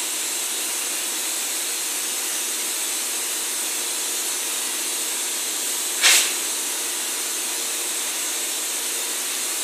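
Compressed air hissing steadily from a hand-held air blow gun on a coiled hose, aimed at a bare car body shell, with a brief louder blast about six seconds in.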